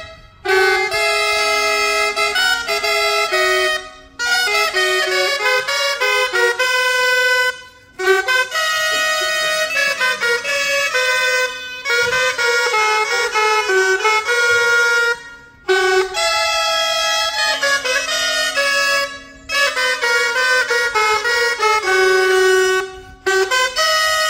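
Loud folk dance music on reedy wind instruments: a quick melody over a steady held low note, breaking off briefly between phrases every few seconds.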